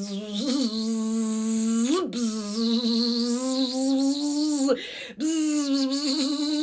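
A woman's voice toning long held notes, with small upward swoops in pitch, a brief break about two seconds in and a short pause for breath near five seconds, after which the note sits a little higher. It is vocal toning meant to clear and balance the throat chakra.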